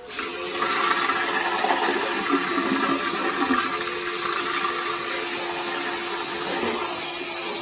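Flexible-shaft drain cleaning machine running, its spinning cable scouring hardened epoxy out of a floor drain pipe. A steady whirring with a constant hum, after a brief dip right at the start.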